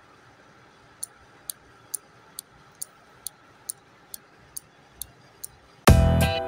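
12V SPDT relay clicking evenly, about two clicks a second, as the powered relay flip-flop circuit switches back and forth. Near the end, loud electronic intro music cuts in.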